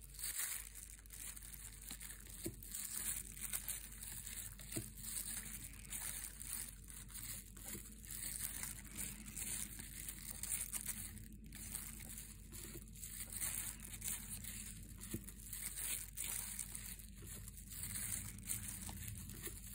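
Faint, irregular rustling and light clicks of Magic: The Gathering cards being thumbed through one by one, the cards sliding against each other in a hand wearing a crinkly plastic glove.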